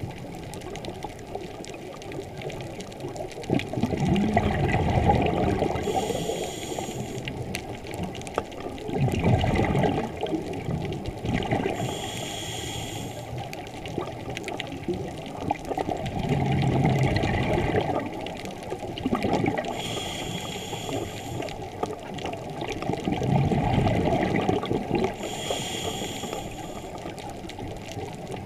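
Scuba diver breathing through a regulator underwater: four slow breaths, about one every seven seconds. Each is a loud bubbling rush of exhaled air, then a short hiss of inhalation through the regulator.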